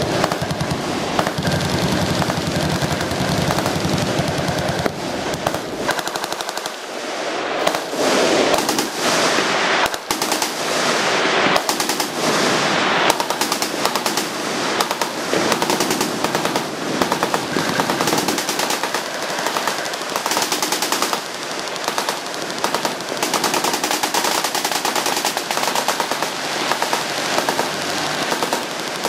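Many machine guns firing at once, a dense unbroken stream of overlapping shots with no pause.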